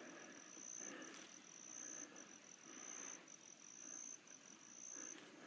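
An insect's steady high trill, broken now and then into short pieces, with soft footsteps in dry leaves about once a second.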